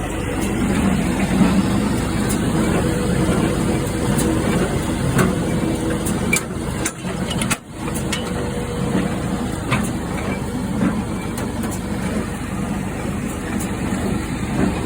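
Tractor engine running steadily with a PTO-driven John Deere 342 square hay baler working, a continuous mechanical rumble with scattered sharp clicks. The sound dips briefly about halfway through.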